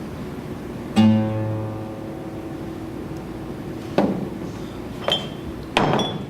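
Acoustic guitar played sparsely: one low note plucked about a second in rings out and fades, then three sharp strokes on the strings near the end.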